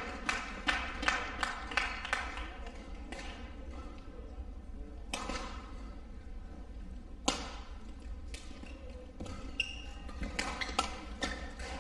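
Badminton play in a large hall: sharp racket-on-shuttlecock hits, single ones in the middle and a quicker series near the end, with a brief shoe squeak on the court. The first few seconds hold a quick run of sharp taps, about three a second.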